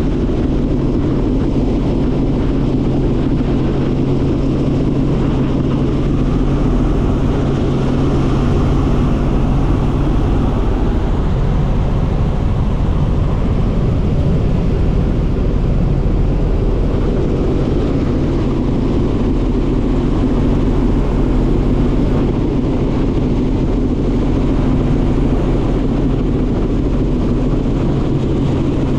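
Helicopter in cruising flight heard from inside the cabin: a loud, steady drone of engine and rotor with a low hum underneath.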